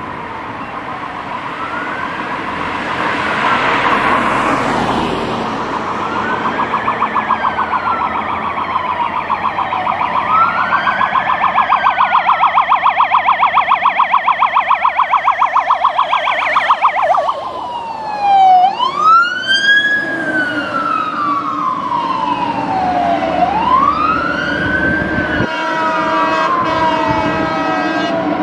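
Sirens of two fire engines, a Renault Midlum and a Scania P400, wailing in slow rising and falling sweeps that overlap. They switch to a fast yelp in the middle and then back to the wail. A car passes a few seconds in, and near the end a steady chord of air horns sounds for a few seconds.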